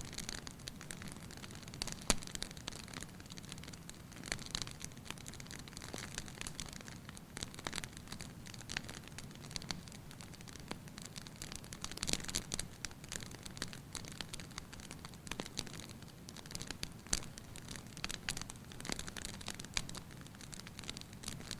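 Wood fire crackling in a fireplace: a steady soft hiss with irregular sharp pops and snaps, a few louder ones about two and twelve seconds in.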